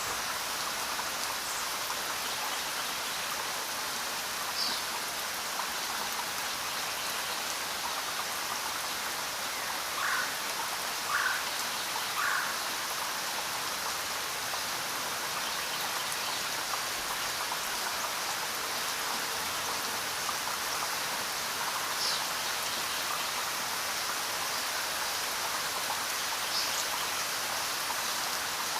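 Steady rain falling, an even hiss of many drops. A few brief, higher sounds stand out from it here and there, three of them in quick succession about ten seconds in.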